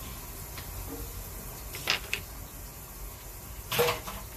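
A lidded clay stewing pot heating rice water on a stovetop, over a steady low hiss, with a few short sharp pops: a pair about two seconds in and a louder one near the end.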